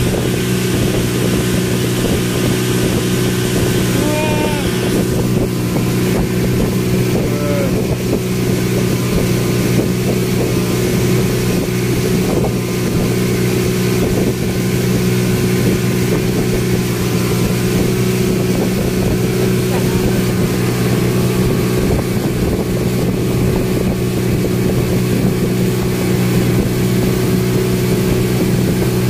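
Speedboat engine running steadily at cruising speed, a loud constant drone that holds one pitch throughout.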